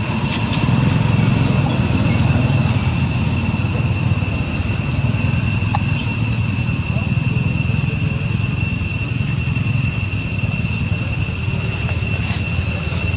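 Steady outdoor background noise: a low rumble under a constant high-pitched whine, with no distinct calls or knocks.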